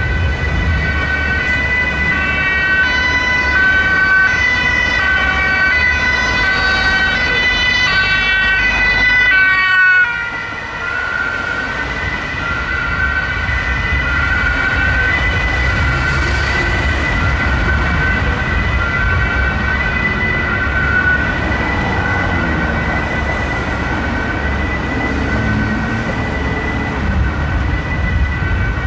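German police cars' two-tone sirens (Martinshorn) sounding, with engine and road noise from the vehicles underneath. The sound changes abruptly about ten seconds in.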